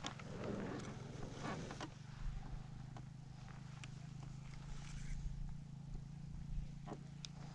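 Steady low hum, with a short stretch of rustling noise in the first two seconds and a few faint clicks later.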